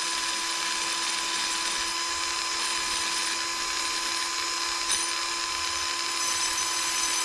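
Wire wheel on a power drill running steadily at full speed, scrubbing rust and dirt off old brake pad clips held by hand. The motor's whine stays at one even pitch under a steady wire-brushing hiss.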